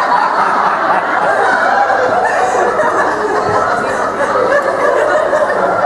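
An audience laughing at a punchline, many voices at once.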